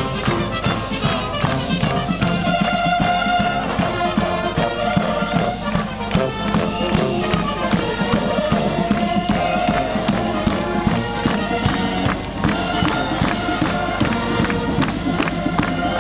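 Military band playing a march on the move: brass carrying the tune over a steady drum beat.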